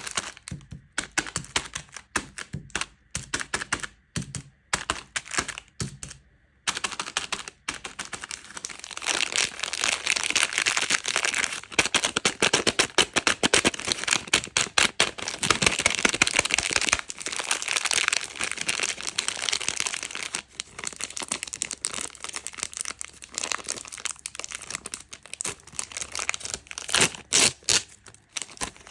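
Candy wrappers crinkling and crackling close up. There are separate crackles for about the first six seconds, then dense, continuous crinkling that thins out near the end.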